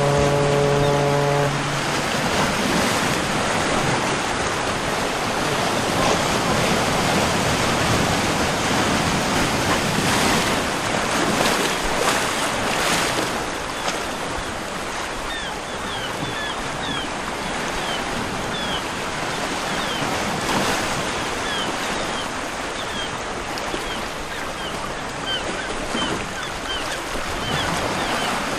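Steady rush of water and wind. A low droning tone with overtones cuts off about a second and a half in, and short high chirps come and go through the second half.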